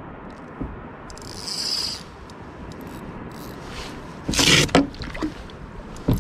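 Scraping and rubbing of fishing gear being handled on a plastic kayak, over a low wash of water against the hull. A louder, sharp scrape comes about four and a half seconds in.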